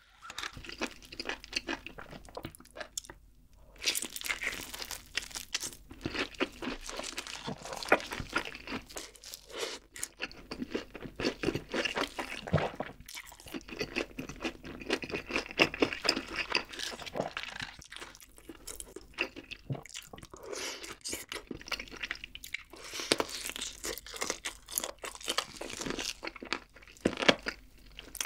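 Close-miked biting and chewing of crispy fried chicken: dense crunching of the breaded crust. It starts a few seconds in, after a brief quiet spell, and keeps going.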